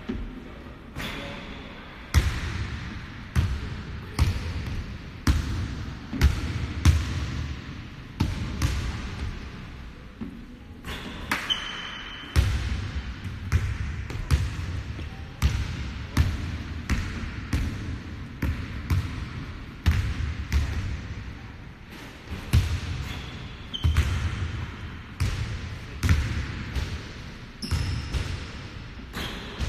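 Sneakers thudding on a low step platform during fast step-ups, about two impacts a second in a steady rhythm, with a few brief high squeaks.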